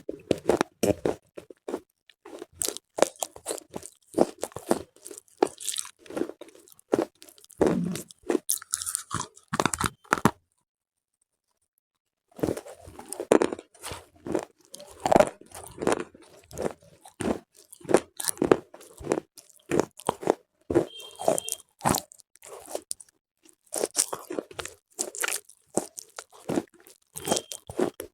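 Close-up crunching and chewing of slate bars, a rapid run of sharp, brittle crunches. The sound cuts out completely for about two seconds roughly ten seconds in, then resumes.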